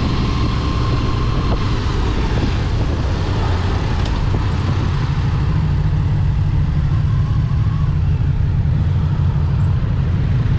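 Motorcycle on the move: a 1998 Honda VFR800's V4 engine running steadily under constant wind noise.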